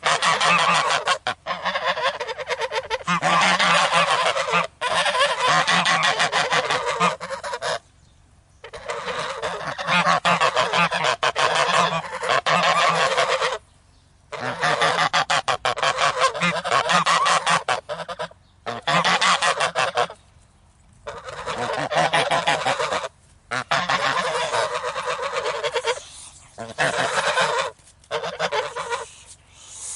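A small flock of geese honking and calling angrily, many loud overlapping calls in long runs broken by a few short pauses.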